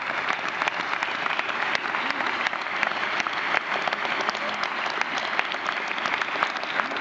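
Standing ovation from a large banquet audience: many hands clapping steadily and densely.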